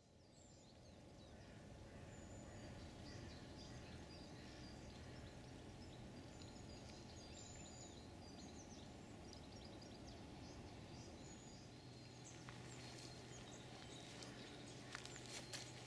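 Faint woodland ambience: small birds chirping and calling in the distance over a low steady hum, with a few sharp clicks near the end.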